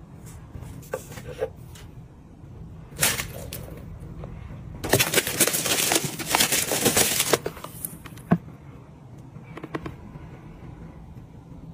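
Crinkling and rustling of packaging as a glossy boxed gift set is handled and opened. A short rustle comes about three seconds in, a louder run of crinkling lasts a couple of seconds around the middle, and small taps and clicks are scattered throughout.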